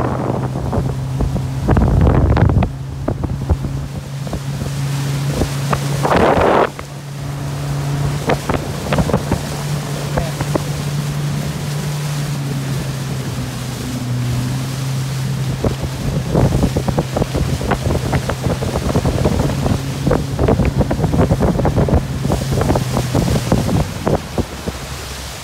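A motorboat's engine running steadily at low speed, with wind gusting on the microphone and water splashing along the hull. Two loud gusts come about two seconds in and again at six and a half.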